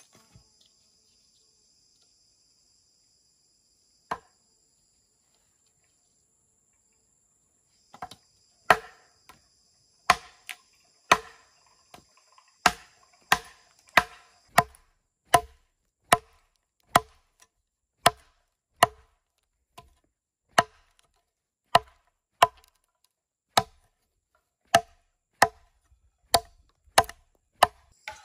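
Machete chopping into a wooden log: a lone chop, then after a pause of a few seconds a steady run of sharp chops, about one and a half a second. A high, steady insect buzz runs underneath and stops about halfway through.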